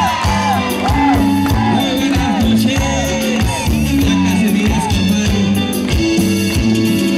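Live cumbia band music, loud and continuous: a lead line of short notes that bend up and down, repeated in a quick figure over a steady bass line and regular percussion.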